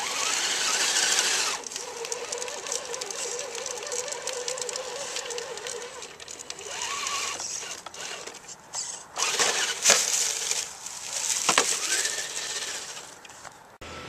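Axial SCX10 radio-controlled rock crawler's electric motor and gears whining as it crawls over a rock. The whine rises and falls in pitch with the throttle, among several louder noisy bursts.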